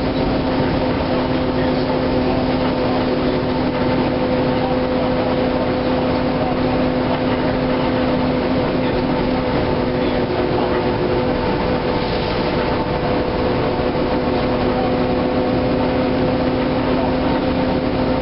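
Inside a NABI LFW transit bus under way: steady engine and drivetrain drone with road noise, carrying a constant two-pitch hum.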